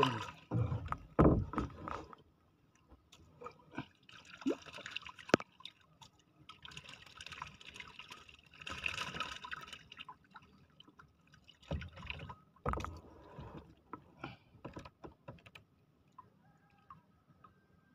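Water splashing and sloshing around a small wooden canoe, with dull knocks of the paddle and gear against the hull. The knocks are loudest in the first two seconds and again about twelve seconds in.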